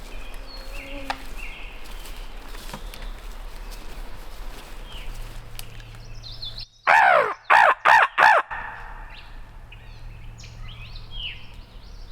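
Crow locator call blown four times in quick succession about seven seconds in: loud, harsh caws used to make turkey gobblers shock-gobble and give away where they are. Faint songbird chirps are heard around it.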